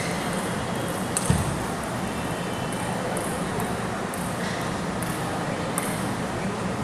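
Table tennis hall ambience: a steady background noise with a few scattered sharp clicks of celluloid or plastic table tennis balls bouncing, and one louder knock about a second in.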